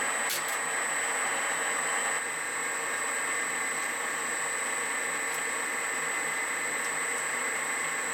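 Small metal lathe running steadily with a high whine and a low hum while a 4 mm hole is drilled into 10 mm brass stock. There is a brief click just after the start, and the level drops slightly about two seconds in.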